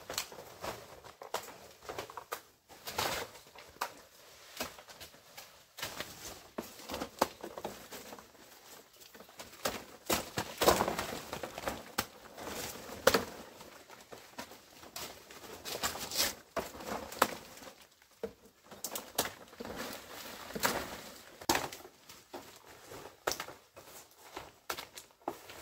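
Large broad leaves rustling and stems snapping as someone pushes through dense undergrowth and picks leaves by hand, in irregular crackles and snaps that are busiest around the middle.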